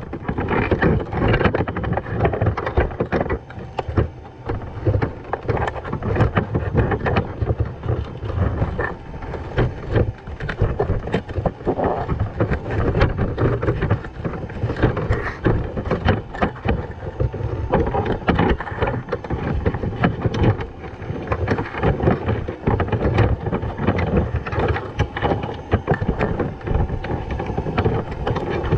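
Underwater sound through a submerged camera's housing: a steady low rumble of moving water with constant crackling and clicking.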